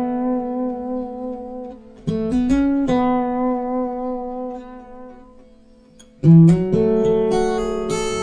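Background music: acoustic guitar chords, plucked in short groups and left to ring, with new chords about two seconds in and again about six seconds in.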